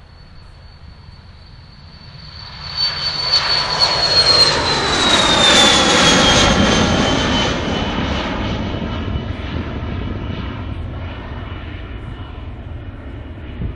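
Cessna Citation twin-turbofan business jet passing on its takeoff climb. Its roar swells a few seconds in and peaks about five to seven seconds in, and the high turbine whine drops in pitch as it goes by. The sound then slowly fades as the jet climbs away.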